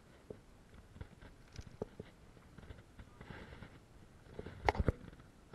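Scattered knocks and rattles from a live golden trevally hanging from a lip grip on a hand-held digital fish scale as it is weighed, with a louder cluster of several knocks near the end.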